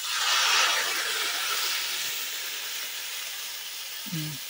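Hot water poured into a kadai of hot fried vegetables, hissing and sizzling as it hits the pan. The hiss is loudest in the first second, then slowly dies down to a steady simmering sizzle.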